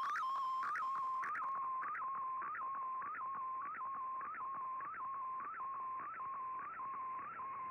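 Shortwave digital picture signal from the radio's speaker: a steady tone with a short upward chirp about twice a second, one scan line of an MFSK image being sent.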